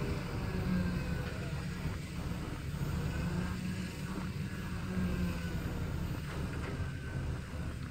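Truck-mounted crane's diesel engine running with a steady low rumble as it holds a roof truss on its hook, with a few faint knocks near the end.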